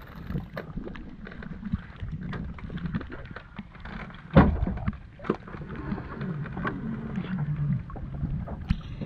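Knocks and rattles of plastic-mesh bubo fish traps being handled and emptied on a wooden outrigger boat, with a heavy thump about four and a half seconds in and a sharper knock just after, over a low steady hum.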